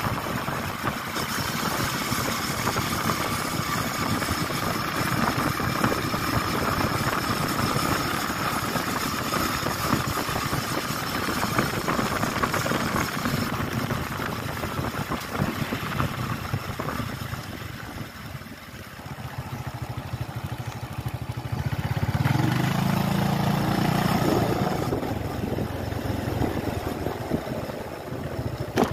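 Motorcycle engine running under way, with a steady rushing noise over it. About two-thirds through it drops back briefly, then picks up again, its pitch rising and falling, and eases off near the end.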